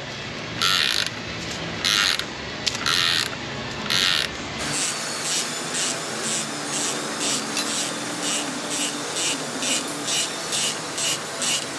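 Ratchet wrench clicking in repeated strokes as it turns the forcing screw of a puller drawing the crankshaft pulley off a Cadillac Northstar V8. A few slower strokes first, then quicker, shorter strokes from about five seconds in.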